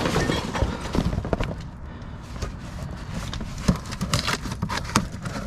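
Irregular clanks, knocks and rattles of scrap metal being shifted and handled during rummaging, over a low rumble of handling noise.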